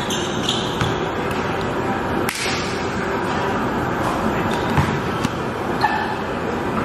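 A basketball bouncing on a gym floor and striking the hoop: several sharp thuds, the loudest a little over two seconds in, over a steady hiss of room noise in a large hall.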